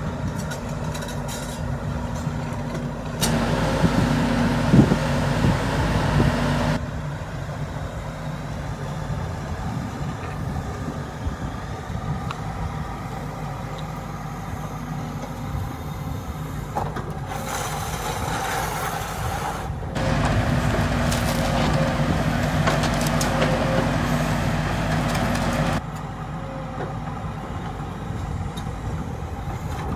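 Volvo tracked excavator's diesel engine running steadily, stepping up louder twice for a few seconds as the machine works, with a hiss a little past the middle.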